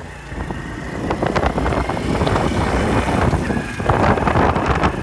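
Riding noise from a Honda motorcycle under way: wind buffeting the microphone over the running engine. It gets louder about a second in.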